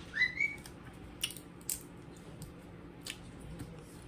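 Cooked crab being picked apart by hand: a few sharp cracks and snaps of shell, about a second, a second and a half and three seconds in, with soft squishing and chewing. A brief high rising squeak comes right at the start.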